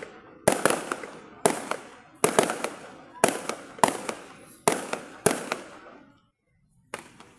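Fireworks bursting overhead: a string of about eight sharp bangs, roughly one a second, each trailing off in a fading crackle and echo. There is a brief lull before a last bang near the end.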